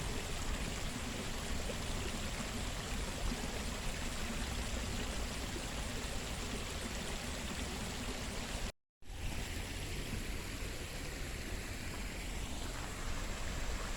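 Steady rushing of running water from a garden stream. It cuts out completely for a moment about nine seconds in, then carries on.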